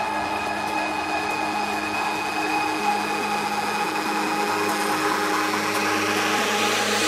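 Electronic music build-up: steady sustained synth tones over a hiss, with a rising noise sweep swelling toward the end.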